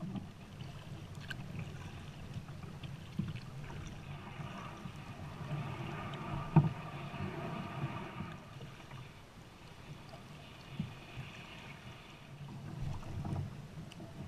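Water splashing and lapping along a Pelican kayak's hull as it is paddled across a lake, with paddle-stroke splashes and a sharp knock about halfway through.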